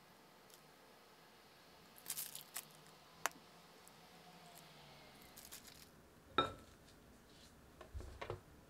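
Faint clicks and soft taps of a piping bag working batter into a metal financier pan, with one sharper, briefly ringing clink a little past the middle.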